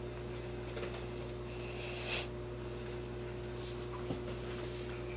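Water poured briefly through a plastic funnel into an empty plastic water bottle, a short splashing hiss about two seconds in, over a steady low electrical hum. A couple of light plastic clicks near the end.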